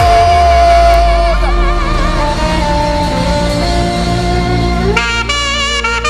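Band music led by a trumpet-like wind instrument playing long held notes with vibrato over a steady bass. A brighter new note comes in about five seconds in.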